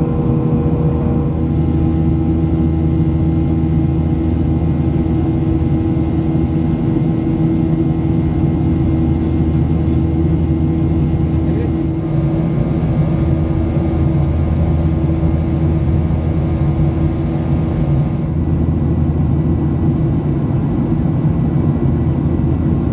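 Cabin noise of a Boeing 737-800 in the climb: the CFM56 turbofan engines and airflow make a loud, steady drone with a low hum and several held tones, shifting slightly in tone a few times.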